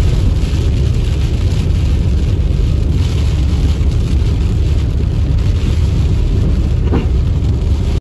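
Car driving on a wet road in heavy rain, heard from inside the cabin: a steady low road-and-engine rumble with the hiss of rain on the windshield.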